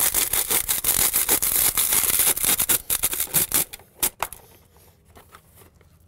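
Plastic dryer vent hood's pipe scraping against rough mortar as it is pushed into the hole in a brick wall, snagging on mortar inside: a dense run of rapid scratchy clicks that stops a little after halfway through, then two faint clicks.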